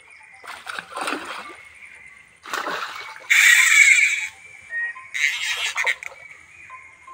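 A hooked fish splashing and thrashing at the surface as it is played on the line close to the bank: four bursts of splashing, the loudest about three and a half seconds in.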